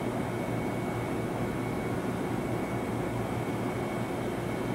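Steady railway-station hum: an even low drone with a faint, thin high whine above it, and no distinct events.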